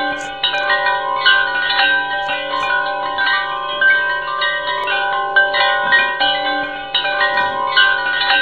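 Background music of ringing bell-like chime notes, a melody of new notes struck about every half second that ring on and overlap.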